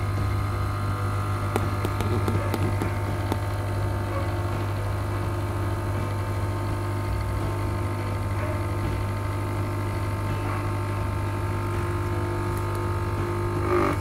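Arissto Happy Maker 2.0 capsule coffee machine's pump running with a steady low buzzing hum, drawing water from the tank for a first-use rinse cycle.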